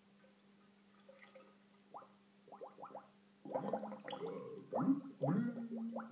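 Bubbling, gurgling sound effect of water in a heating radiator: a few single rising bloops at first, then a denser, louder run of bubbly gurgles from about halfway through.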